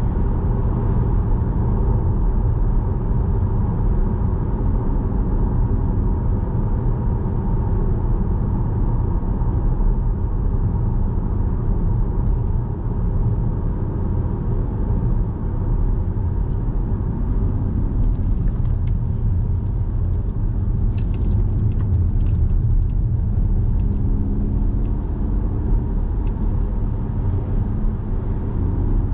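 Steady low rumble of engine and road noise from inside a moving car, with a few faint light ticks in the second half.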